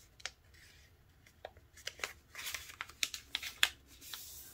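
A sheet of paper being folded and creased by hand: quiet rustling and crinkling, with a run of sharp crackles through the middle. Near the end comes a soft hiss as the fold is pressed flat against the table.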